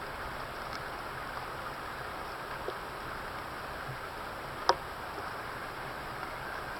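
Steady, even background hiss of rainforest ambience, with a single sharp click about two-thirds of the way through.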